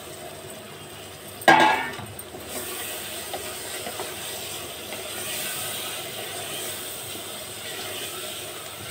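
Chopped tomatoes tipped from a steel plate into hot oil and masala in an aluminium pressure cooker, the plate giving one brief ringing clang against the rim about a second and a half in. After that comes a steady sizzle as a spatula stirs the tomatoes into the spices.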